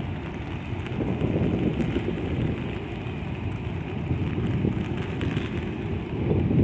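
Gusty wind rumbling on the microphone over a steady hiss of rain.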